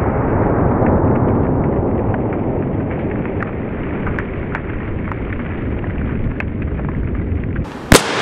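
A long, muffled, low rumble, followed near the end by one sharp, loud shotgun blast as the shot charge strikes a cardboard patterning target.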